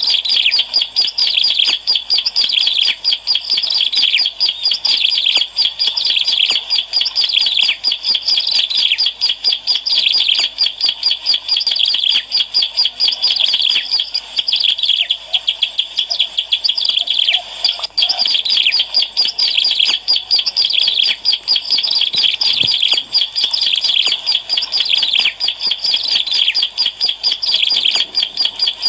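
Ciblek alang-alang, a prinia, singing a fast, unbroken stream of high chirps and trills. It is a lure recording (suara pemikat) of the bird in full song.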